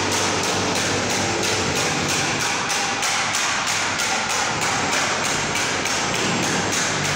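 Background music with a steady beat of about three to four strokes a second over held low notes, which change near the end.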